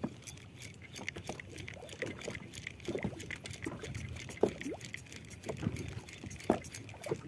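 Small waves lapping and plopping against the side of a small fishing boat, in short irregular splashes, with cloth rustling close to the microphone.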